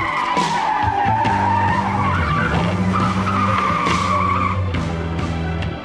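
Car tyre squeal sound effect: a long screech that dips then rises in pitch, and a second screech about three seconds in, over a low steady engine hum.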